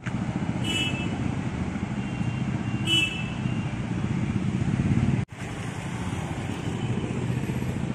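Road traffic with a steady rumble of passing cars and motorcycles. Two short, high-pitched vehicle horn toots sound about two seconds apart, the first just under a second in.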